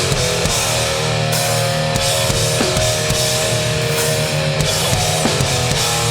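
Live hardcore punk band playing full-on: distorted electric guitars and bass over fast, driving drums, with no vocals in this stretch.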